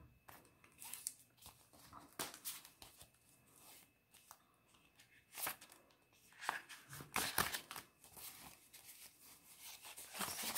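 Clear plastic zipper envelopes crinkling and paper banknotes rustling as they are handled and fanned through, in short scattered bursts, louder about halfway through and near the end.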